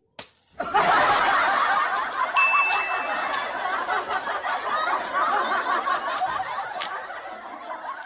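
Crowd laughter, likely an edited-in laugh-track sound effect, starting abruptly just under a second in and cutting off sharply at the end.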